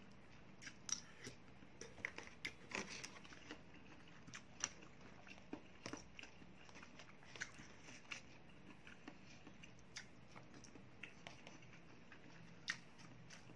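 A plastic fork clicking and scraping against a plastic takeaway food tray, with quiet chewing: a scatter of small, irregular clicks.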